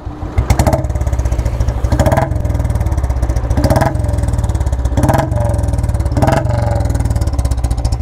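Royal Enfield Bullet single-cylinder engine idling with about five quick throttle blips. Each blip is followed by a short falling whistle from an H2-style whistle fitted inside the exhaust bend pipe.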